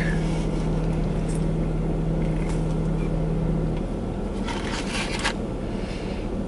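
Steady hum of a parked car idling, heard inside its cabin; a low steady tone in the hum drops out about four seconds in. A brief crackling rustle comes about five seconds in, while a burger is being bitten and chewed.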